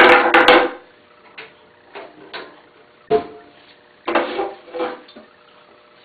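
Metal tongs clattering and knocking against the kiln and pottery while reaching in for a hot pot: a loud scraping clatter at the start, then a run of separate sharp knocks and a second burst of clatter about four seconds in.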